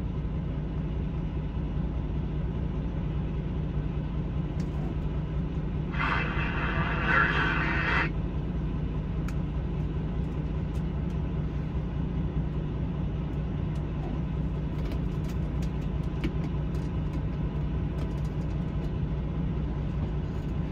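A semi truck's diesel engine idling steadily, heard inside the cab. About six seconds in, a two-second burst of noise comes from the CB radio.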